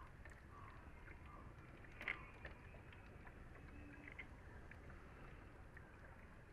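Near silence: faint room tone with one small click about two seconds in and a few fainter ticks.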